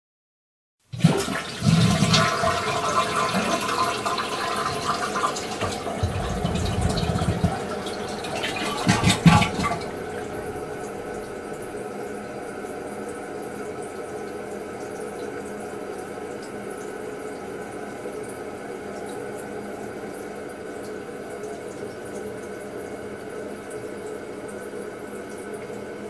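Toilet flushing: a loud rush of water starting about a second in, surging again briefly near nine seconds and draining away at about ten seconds. It settles into a steady, quieter hiss of the tank refilling.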